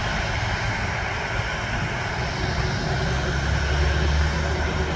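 CFM56-7B turbofan engines of a Boeing 737-800 running steadily: an even rushing noise over a strong deep rumble.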